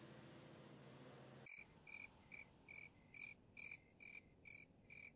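A cricket chirping at night, a short high chirp repeating very evenly about two and a half times a second, faint. It starts about a second and a half in, when a faint low hum cuts off.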